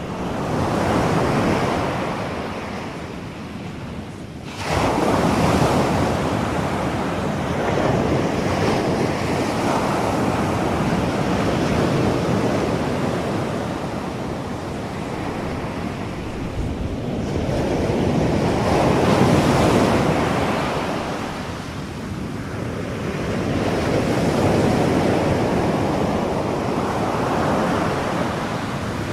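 Ocean surf: waves washing in, swelling and fading every few seconds, with a sudden jump in loudness about four and a half seconds in.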